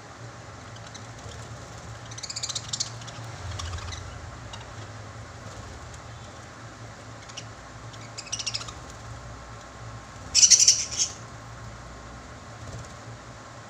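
Pet lovebirds chirping in four short, shrill bursts, the loudest about ten seconds in, over a steady low hum.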